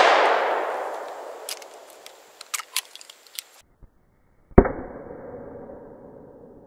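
The blast of a Smith & Wesson Governor revolver firing a .410 number 6 shot load rolls away and fades over about three seconds. About four and a half seconds in comes a second, muffled bang with a long fading rumble, the shot heard from a camera near the target.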